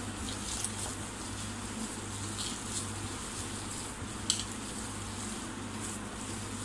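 A hand squeezing and mixing mashed boiled potato filling with chopped onion and chillies in a bowl: soft, irregular squelches and crackles, with one sharp click about four seconds in. A steady low hum runs underneath.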